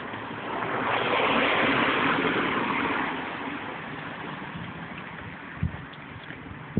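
A car passing by on the street, its tyre and engine noise swelling over the first couple of seconds and then fading away. A few soft knocks follow near the end.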